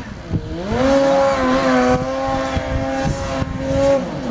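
Snowmobile engine revving up about half a second in and held at high, steady revs as the sled climbs the hill, then dropping off near the end.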